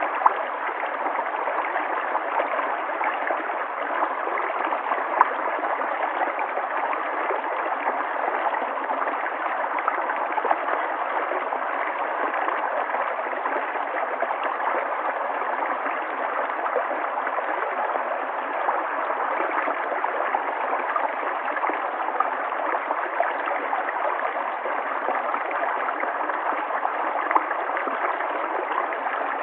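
River water flowing steadily over rocks, a constant rush with small splashes and gurgles.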